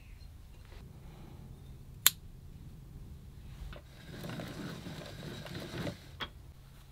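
A sharp click about two seconds in, then a plastic yarn ball winder cranked by hand for about two seconds, whirring and rattling as it winds handspun yarn into a ball, ending with another click.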